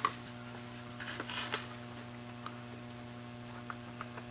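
Steady low electrical hum with a few faint, light clicks and taps from a small circuit board being handled and a surface-mount resistor being soldered.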